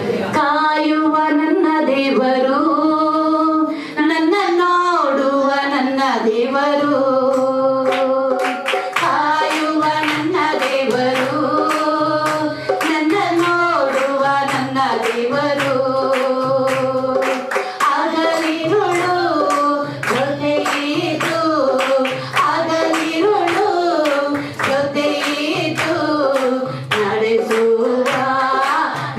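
A Kannada Christian worship song sung into a microphone, with hand-clapping and music keeping a steady beat.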